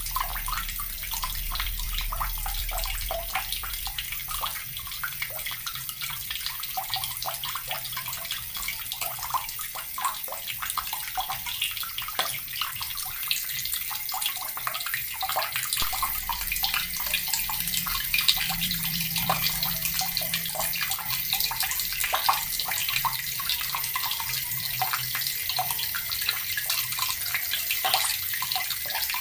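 Water from a tap running steadily into a bucket: a constant splashing with many small drops and splatters.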